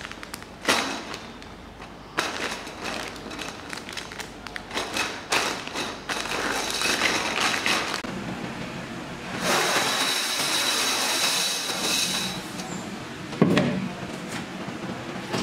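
Automatic weighing and packing machine for plastic parts running. Small plastic parts clatter and rattle for several seconds, followed by a steady noisy stretch of about three seconds with a high whine. A single thump comes near the end.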